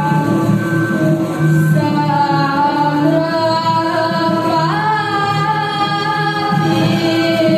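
Balinese pupuh Ginanti sung by a group of women: long, slowly moving sung notes over a low note that repeats on and off.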